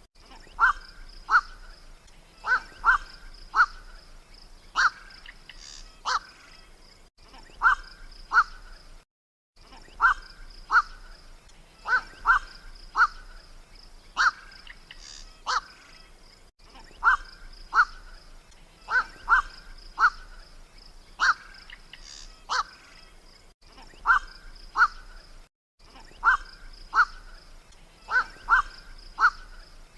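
Black-crowned night heron (kowak) calls: short, harsh 'kwak' calls repeated in clusters of two to four every second or two, over a faint steady high hum. This is a lure call recording for drawing in night herons.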